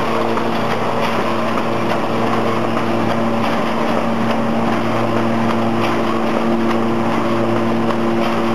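SY-HD38 automatic square-bottom paper bag making machine running at speed: a steady mechanical hum with several held tones and a light, repeating clatter from its moving parts.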